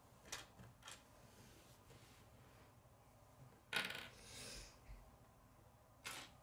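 Small plastic K'nex pieces clicking and clattering on a wooden floor: two light clicks, then a sharper clack with a brief rattle around the middle, and one more click near the end.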